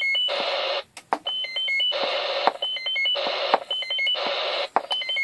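Roger beep from the Cobra 148GTL DX's roger beep board, heard through a second radio on the bench. Each time it is a quick run of short stepped beeps followed by a burst of hiss, and it repeats about every 1.3 seconds while the board's timing control is being adjusted.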